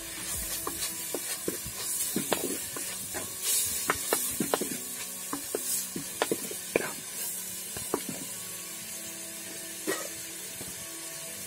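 Wooden spatula stirring and scraping onion-tomato masala in a clay pot, giving irregular knocks and scrapes against the pot wall over a steady sizzle of frying. The knocks thin out near the end.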